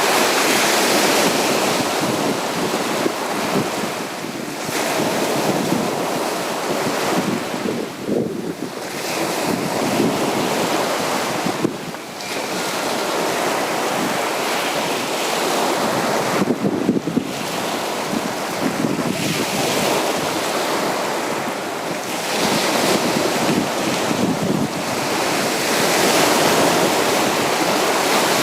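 Sea waves breaking on a beach: steady surf that swells and eases every four to five seconds, with wind.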